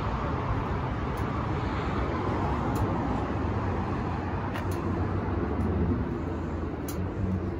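Steady low rumble of a motor vehicle engine, with a few faint clicks.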